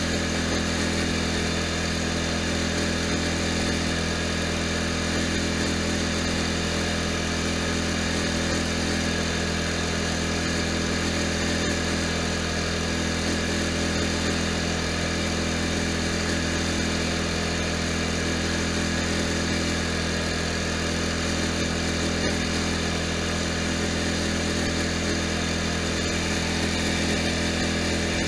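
Poulan Pro lawn tractor's engine running steadily at one constant pitch while the tractor drives along.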